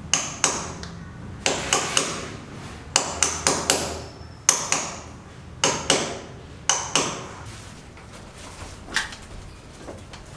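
Hammer blows in uneven groups of two to four, each strike sharp with a short ringing tail, stopping after about seven seconds; one lighter knock comes near the end.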